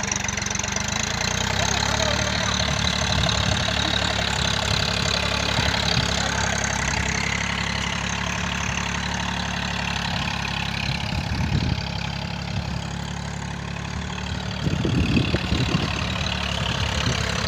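Tractor engine running steadily under load, pulling an implement through the field.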